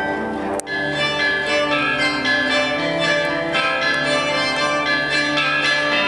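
Chinese bronze chime bells (bianzhong) and zithers playing an ancient-style piece, with overlapping ringing notes that sustain and fade. A sharp click and a brief drop in sound come about half a second in.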